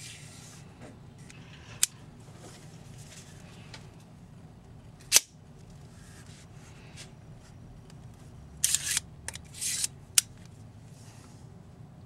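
Microtech Halo II out-the-front automatic knife's mechanism worked by hand: a sharp click about two seconds in and a loud snap about five seconds in, then a second or so of metal sliding and rasping ending in a click near ten seconds, as the charging handle is pulled to draw the blade back in and pushed home.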